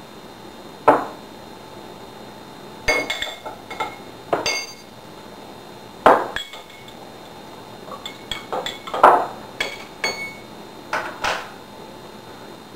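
Teaspoons clinking and ringing against small drinking glasses as sugar is added to the tea and stirred. The sharp clinks come in clusters: one about a second in, then many between about three and eleven and a half seconds.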